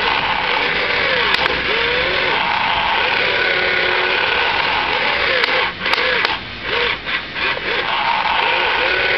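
Radio-controlled toy excavator working: its small electric motors whine in short rising-and-falling arcs as the boom and bucket move, over a steady hiss. The whine breaks off several times with brief clicks a little past halfway.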